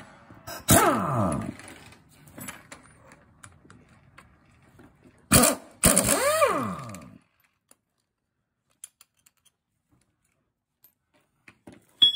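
A handheld power tool's motor run in two short bursts, each starting with a click and spinning up and winding down in pitch.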